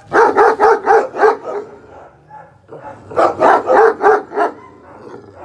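Central Asian Shepherd Dog (Alabai) barking in two rapid runs of about five or six barks each, the second run starting about three seconds in.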